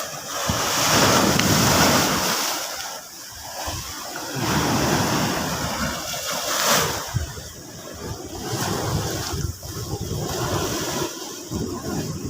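Sea waves breaking on the shore, the surf swelling and washing back in surges a few seconds apart.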